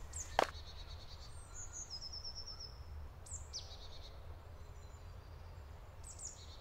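Woodland birds calling: a few high chirps and a short fast trill about two seconds in, a falling call a little later and another chirp near the end, over a low steady rumble. One crunching footstep on the gravel just after the start.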